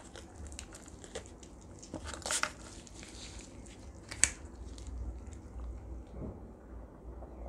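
Roast duck torn apart by gloved hands: small crackles and clicks of the crisp skin and moist tearing of the meat, with a louder crackle about two seconds in and one sharp crack about four seconds in.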